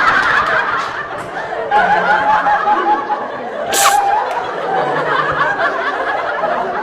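People laughing and chattering, with a short, sharp hiss-like burst just under four seconds in.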